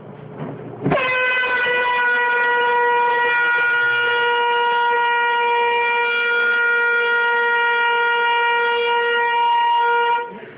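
Air horn blasting one loud, steady note from about a second in for roughly nine seconds, then cutting off. It keeps sounding because its button is held down by a prank trap.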